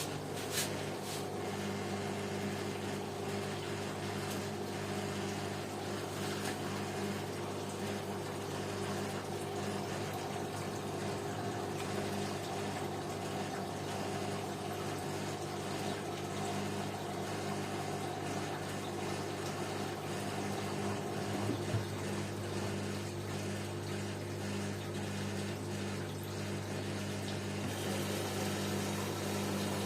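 LG washing machine running with its pump humming steadily while water moves through it.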